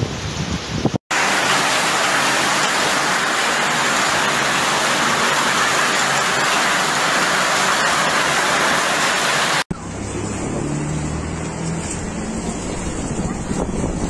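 Heavy rain pouring down in a steady, even hiss for about eight and a half seconds, starting and stopping abruptly. It is framed by gusty storm wind blowing on the microphone.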